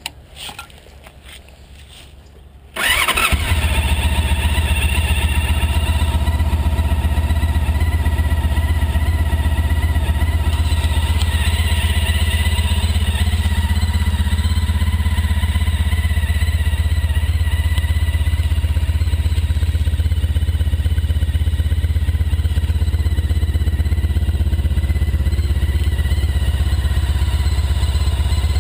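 Honda ST1300's V4 engine, breathing through Staintune mufflers with the baffles in, starts up about three seconds in and then idles steadily.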